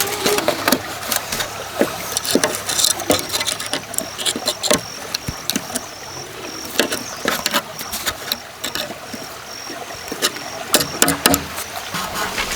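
Irregular knocks, taps and clatter of bamboo being handled and worked by hand. A faint high-pitched pulsing chirp repeats through the middle of it.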